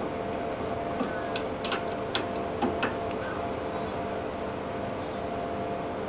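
Hex key clicking against the brass service valve of an air-conditioner outdoor unit as the valve is opened and the key is pulled out: about seven sharp metal clicks between one and three seconds in, over a steady hum.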